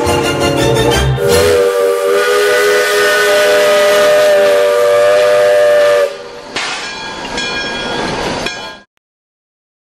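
Steam locomotive whistle blowing one long chime-like blast of several notes at once, which cuts off about six seconds in. A quieter whistle-like tone follows, and the sound stops abruptly near the end.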